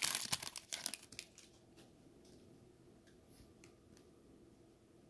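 Foil trading-card pack wrapper crinkling as it is torn open, dying away about a second in; after that only a few faint small clicks.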